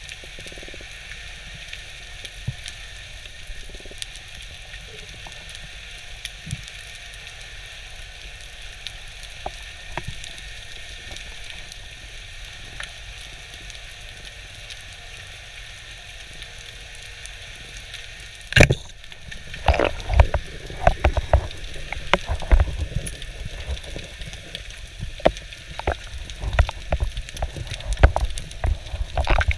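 Underwater ambience: a steady fine crackle and hiss. About two-thirds of the way in comes one sharp loud crack, followed by many irregular knocks and thumps.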